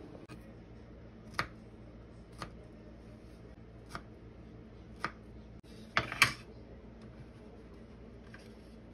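Knife slicing strawberries on a bamboo cutting board: a sharp tap each time the blade cuts through onto the wood, about once a second, with a louder double knock about six seconds in.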